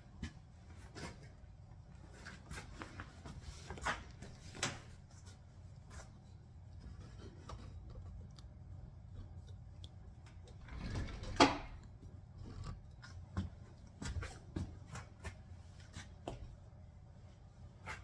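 Handling noise close to the microphone: scattered knocks, taps and rustles, with one sharper knock about eleven seconds in.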